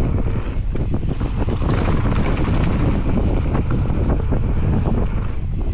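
Wind rushing over the camera microphone on a mountain bike riding fast down a dirt trail, with the rumble and rattle of the tyres and bike over the dirt.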